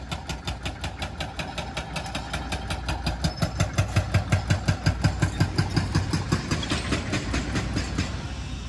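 A large engine running with a rapid, even knock, about six beats a second, growing louder partway through and then easing off.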